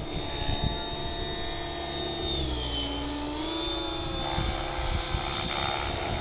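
Compass 6HV 12S electric 600-size RC helicopter in flight: the steady whine of its motor and rotors dips in pitch about halfway through, then climbs back up.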